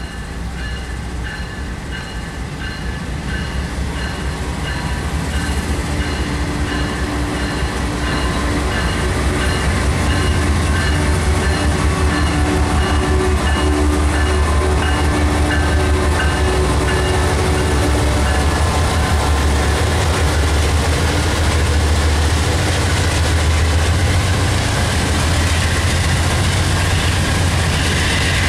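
Two GE Dash 9 diesel locomotives on a slow-moving freight train, their engine rumble growing louder as they come up and pass. A crossing bell rings steadily until about two-thirds of the way through. Near the end the locomotives open up under throttle.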